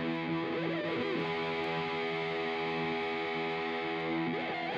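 Background music: a distorted electric guitar holding sustained chords, with sliding notes about a second in and again near the end.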